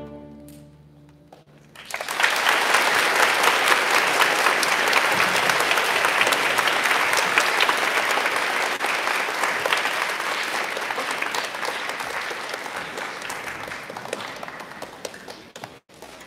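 A school string orchestra's last chord dies away, then an audience applauds loudly for about ten seconds, the clapping thinning out and fading near the end.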